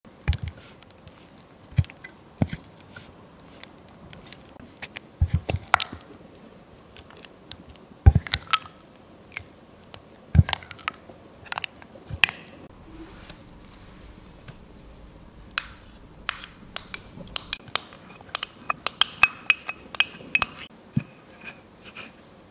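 Silicone spatula stirring and pressing cream cheese in a glass measuring jug: soft sticky squelches with irregular taps and clinks of the spatula against the glass, the loudest about 8 seconds in and a quick run of small clicks near the end.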